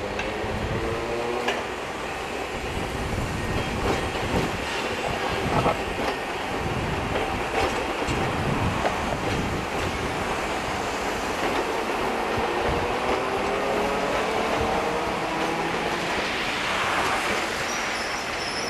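Hiroden 3100-series articulated tram running with the hum of its nose-suspended traction motors, rising in pitch as it gathers speed, and wheels clicking over the rail joints. Near the end the wheels squeal as it goes off through the intersection.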